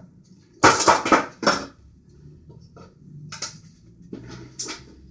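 Hard objects clattering and knocking on a work surface as parts and tools are handled: a loud cluster of clatters about half a second in, then a few smaller knocks later, over a faint low hum.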